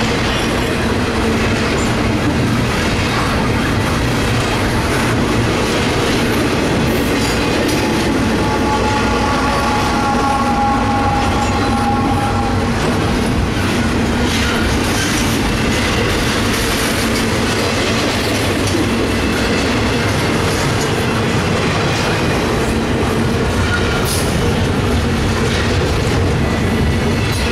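Double-stack intermodal well cars of a freight train rolling past at close range: a steady rumble and rattle of steel wheels on the rails. A thin wheel squeal rings for a few seconds about a third of the way in.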